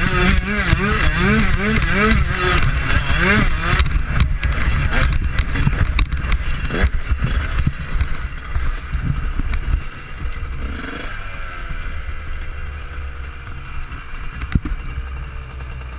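Yamaha YZ125 two-stroke dirt bike engine revving up and down in quick repeated surges. About four seconds in the surges stop and give way to low rumble and knocks. About eleven seconds in the revs drop and settle to a low idle.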